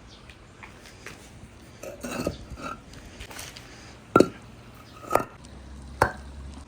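Marbles and balls rolling down a wooden marble run, clattering and knocking against the track. There are light clicks throughout, a rattling cluster about two seconds in, and three sharp knocks about a second apart in the second half.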